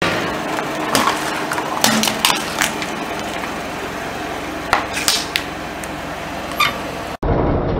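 Scattered sharp clicks and clinks of small hard objects over a steady hiss. Shortly before the end it cuts to a car engine idling.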